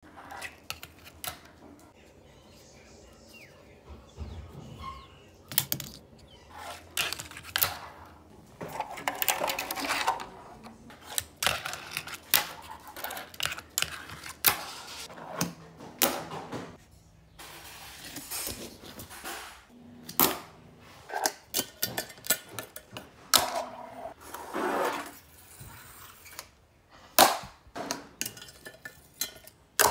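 Santa Cruz Tech Deck fingerboard clacking and rolling on a tabletop and a plastic rail: sharp clicks of the tail popping and the board and wheels landing, with short stretches of the small wheels rolling.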